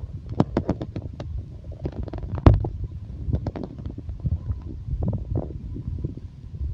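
Human stomach growling: a continuous low rumble broken by quick gurgling pops and squelches, a cluster of them in the first second and the loudest about two and a half seconds in.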